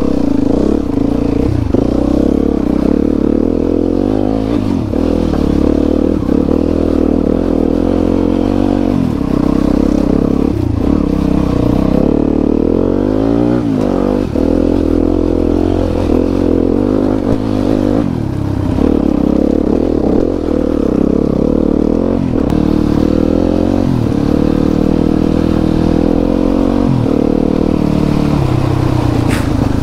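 Enduro dirt bike engine running under changing throttle, its pitch rising and falling again and again as the bike is ridden.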